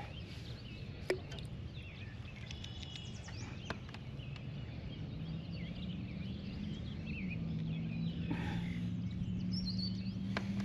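Songbirds chirping and warbling over a quiet lake, with a low steady hum underneath that rises slightly in pitch about halfway through, and a couple of light clicks.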